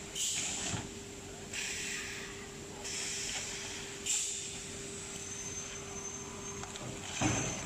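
Automatic plywood hot press line running with a steady machine hum, broken by several short hisses of compressed air from its pneumatic cylinders. A thud with a hiss comes near the end.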